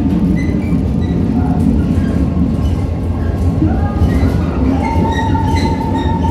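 Train running on the rails, a steady low rumble of wheels and carriage; a steady high whine comes in about five seconds in.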